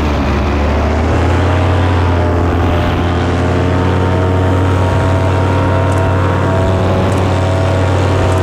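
Polini Thor 200 single-cylinder two-stroke paramotor engine and propeller running steadily. Its pitch dips briefly near the start as the throttle eases, then climbs back and holds.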